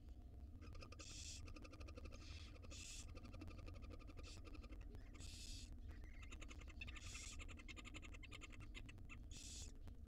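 Tiny barn owl nestlings begging as they are fed: a faint, fast chittering of ticks, broken by about six short hisses.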